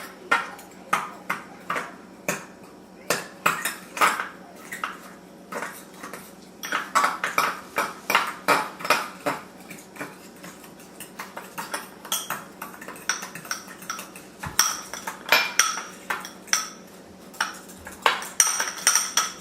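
A utensil clinking irregularly against a bowl while stirring a ketchup, mustard and brown sugar topping.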